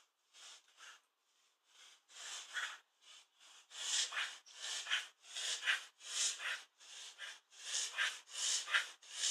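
Staffordshire bull terrier breathing in a fast run of short, noisy breaths in and out, getting louder about two seconds in and then coming two or three times a second. The owner suspects anxiety or kennel cough.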